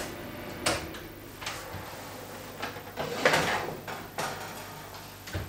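Oven door being opened and a tray of baked pastries taken out: a handful of separate clunks and knocks, the loudest and longest about three seconds in.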